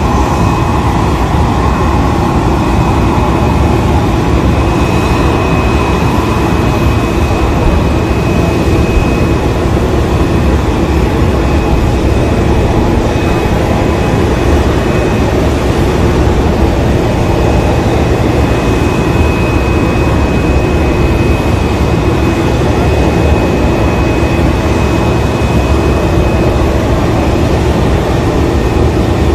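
Jet airliner's turbines running steadily on the apron: a loud, even drone with a constant high whine over it.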